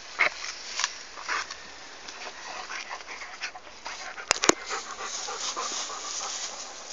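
Dog chewing and gnawing on a hard stalk of sugarcane: scattered crunches and wet mouth sounds, with two sharp clicks a little past the middle.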